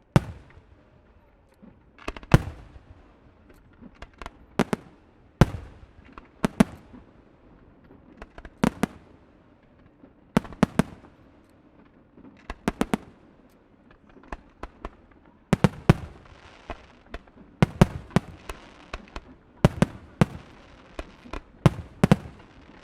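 Fireworks display: shells bursting in sharp bangs every second or two, some in quick runs of cracks, coming thicker and faster in the second half with a short burst of crackle.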